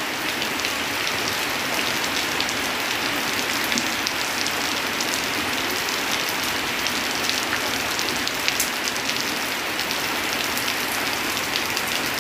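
Heavy rain on a corrugated tin roof, water streaming off the roof edge: a steady dense hiss with many small sharp ticks of drops striking the metal.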